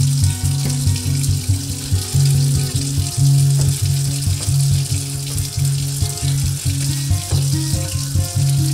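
Background music with a rhythmic bass line and a simple stepping melody, over the steady hiss of a tap running into a stainless steel sink.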